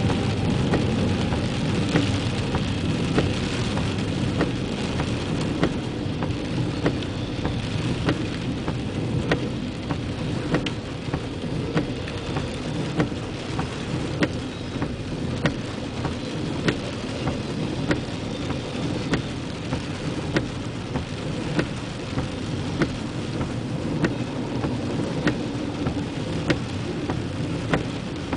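Freight train rolling past in the rain: a steady low rumble with regular clicks of wheels passing over the rails, over the hiss of falling rain.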